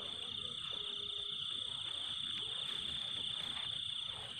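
Crickets chirring in a steady, continuous high-pitched trill.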